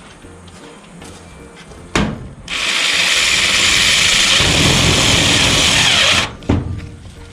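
A power tool runs steadily for about four seconds, with a sharp knock just before it starts and another just after it stops.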